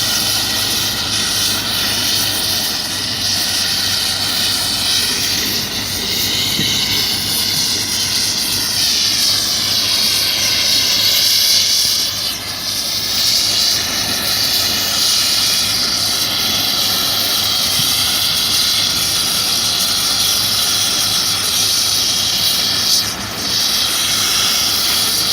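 Gas cutting torch flame hissing steadily as it heats a bent steel anchor bolt, with a slight pitch that drifts slowly up and down.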